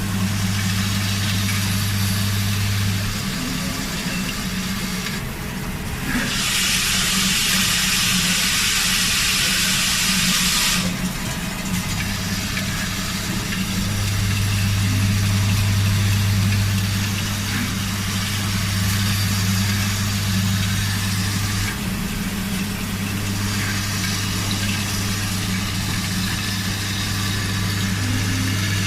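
Automatic toroidal coil tin-soldering machine running, a steady low electrical or motor hum. About six seconds in a loud hiss, like a blast of air, starts and lasts about four seconds; fainter hisses come and go later.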